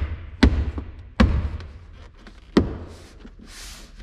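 Three sharp thumps on a hard plastic pillar trim panel in a pickup cab as it is struck and pushed by hand to seat its clips, each knock dying away quickly.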